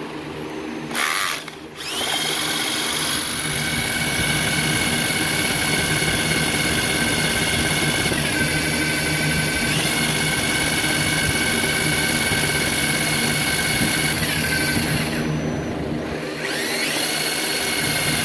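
Electric drill spinning a fabricated steel 12-valve Cummins crank pulley past a crankshaft sensor, whining at steady speed. It starts up about two seconds in with a rising whine. It dips in speed briefly mid-way, then winds down near the end and spins back up.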